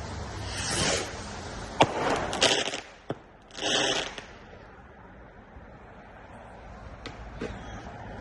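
Fireworks going off: a string of sharp bangs mixed with hissing surges, busiest in the first four seconds. It is quieter after that, with two fainter pops near the end.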